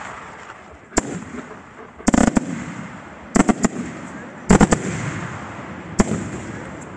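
Aerial firework shells bursting: a single sharp bang about a second in, quick clusters of bangs around two, three and a half and four and a half seconds, and another single bang near six seconds, each followed by a rolling echo.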